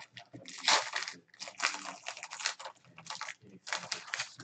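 Clear plastic trading-card pack wrapper crinkling in bursts as it is torn open and handled, four separate spells of crackling.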